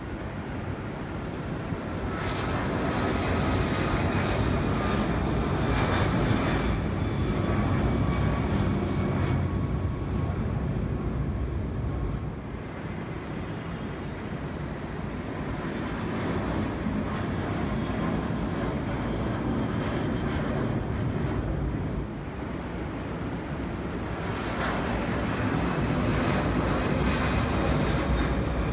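Jet airliner engines, a steady rumble with a thin high whine over it, swelling and easing in level several times as the plane moves.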